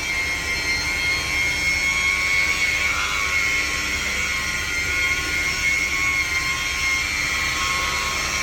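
Electric rotary polisher running steadily with a high whine, buffing compound into black car paint that is still scratched and hazy.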